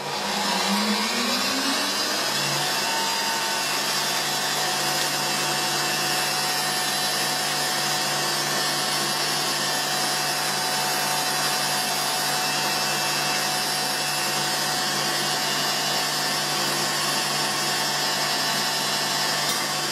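Stand mixer switched back on, its motor whine rising as it comes up to speed over the first two seconds or so, then running steadily as the wire whisk beats egg whites into a glossy meringue.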